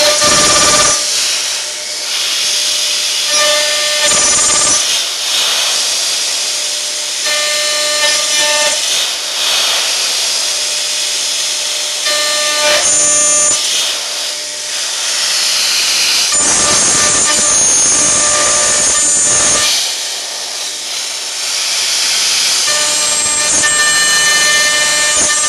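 CNC router spindle milling steel: a loud, continuous hissing cutting noise, with a steady whine that comes and goes several times.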